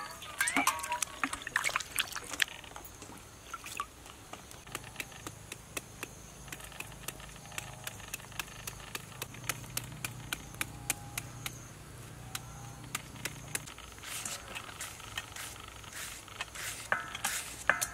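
A kitchen knife working a peeled green mango: a run of sharp clicks, about one or two a second, as the blade scores the flesh. The clicks come faster near the end as strips are shaved off.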